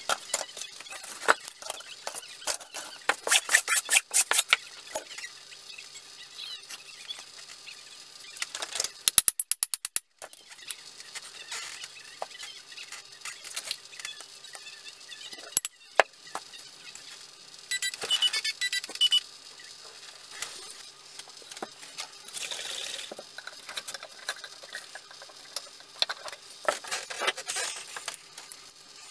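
Hand tools and an axe being handled on a workbench: scattered clicks, taps and knocks with bits of light scraping, including a quick, evenly spaced run of clicks about nine seconds in.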